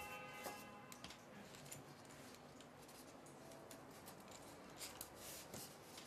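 Faint scattered clicks and light scraping of small screws and plastic tube clamps being handled and fitted into a gimbal's frame plates.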